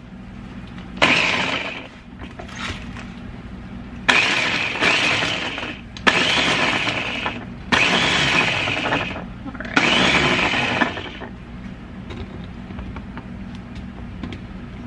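Electric mini food chopper pulsed five times, its motor and blades chopping jalapeños in the plastic bowl. Each run starts abruptly and cuts off after a second or so, with a short first pulse and four longer ones.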